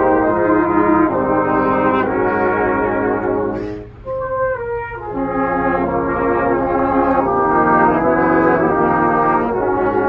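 Brass band playing sustained chords in full. About four seconds in the sound thins briefly to a short lone phrase, then the full band comes back in.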